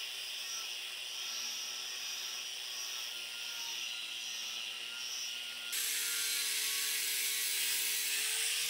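Angle grinder with a stripping disc running against a cast iron jointer table, taking off rust: a steady motor whine with grinding hiss. About six seconds in it grows louder and harsher.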